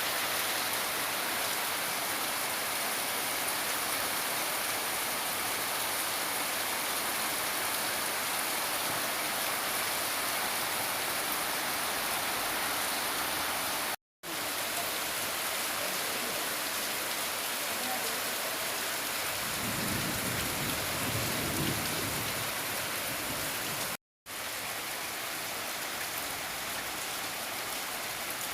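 Steady rain falling and pattering on surfaces, an even hiss throughout. A low rumble rises and fades around two-thirds of the way through, and the sound drops out for a split second twice.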